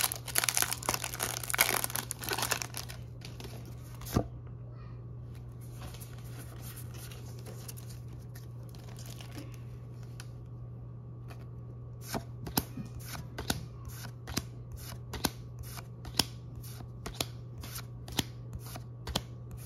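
Foil booster-pack wrapper crinkling and tearing for about three seconds, then a single click. After a quiet stretch with a steady low hum, a run of light clicks and snaps from about twelve seconds on, a few a second, as trading cards are slid and flipped one by one.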